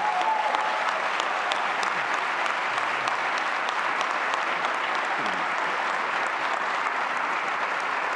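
Audience applauding steadily: a dense, even run of many hands clapping.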